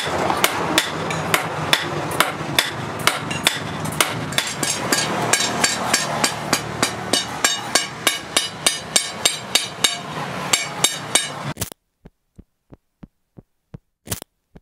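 Hand hammer and sledgehammer striking hot steel on an anvil, blacksmith forging a knife blade, in a steady run of about three blows a second. The blows stop suddenly near the end, leaving near silence broken by a few faint clicks.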